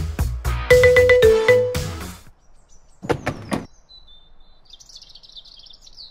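Music played on a marimba-like mallet instrument, a bright plucky melody that stops about two seconds in. A brief knock follows about a second later, then faint high bird chirps.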